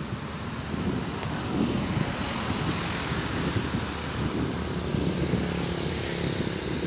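Diesel train engine running with a steady drone as the train approaches slowly. A faint high whine joins in about five seconds in.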